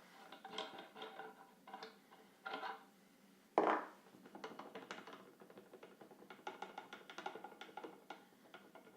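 Light background music with short, mallet-like percussive notes, broken by one sharp knock about three and a half seconds in.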